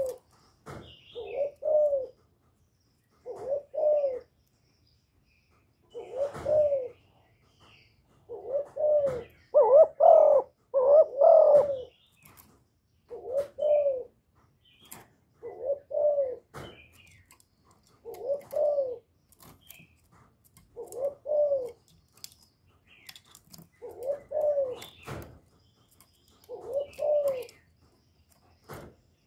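Caged spotted dove cooing: short coo phrases repeated about every two seconds, with a louder, longer run of coos around ten seconds in.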